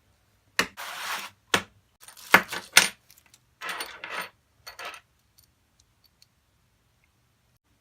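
Small metal parts being handled: scope mounting rings and their hardware clinking and rattling, in several short bursts with some sliding and rustling, then stopping about five seconds in.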